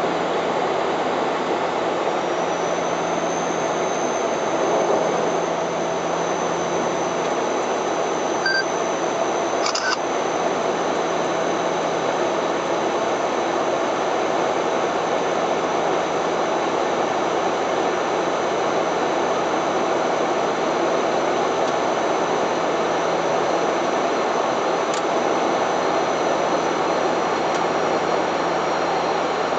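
Steady cockpit noise of a Bombardier Dash 8-400 turboprop airliner in flight: the even drone of its PW150A turboprop engines and propellers mixed with rushing airflow, with a faint high whine.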